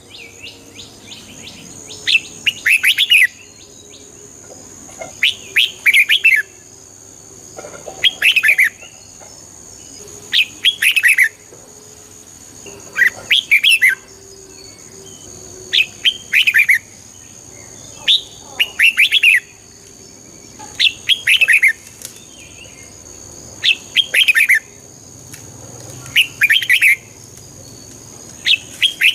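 Red-whiskered bulbul singing: short, bright warbled song phrases, each under a second long, repeated every two and a half to three seconds.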